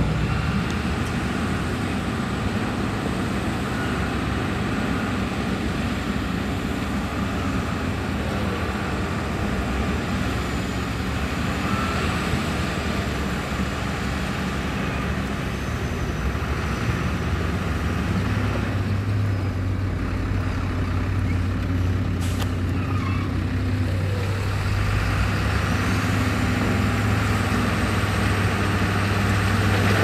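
Diesel engines of heavy construction machinery running steadily, with a deeper, stronger engine note setting in a little past halfway through.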